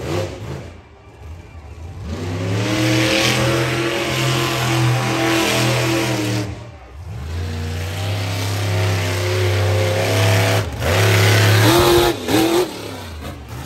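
Monster truck engine revving hard in long bursts. It winds up about two seconds in and holds at high revs, drops off briefly midway, then winds up again and falls away near the end after a short final blip.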